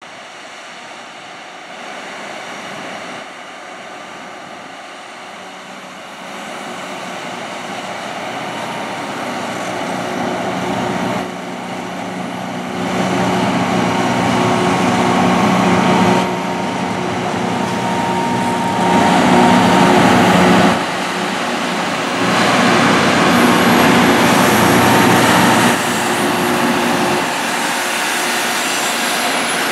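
Loram rail grinder train's diesel engines running as it approaches and passes at low speed, a steady engine hum with a higher held tone above it. It grows louder over the first half, then steps up and down as successive units go by.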